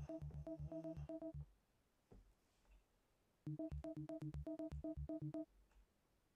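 Synthstrom Deluge groovebox playing a looped sequence of a sampled sound. Quick, short pitched notes, about seven a second, come in stretches of one to two seconds separated by pauses of about two seconds, and the loop repeats.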